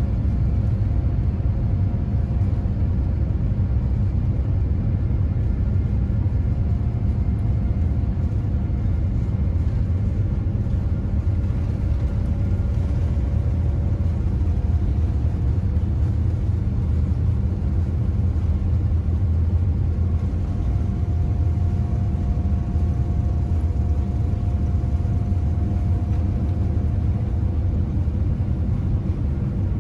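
Steady low rumble inside the cabin of a Boeing 787-9 taxiing, its engines at taxi power and the wheels rolling over the taxiway, with a few faint thin steady tones above the rumble.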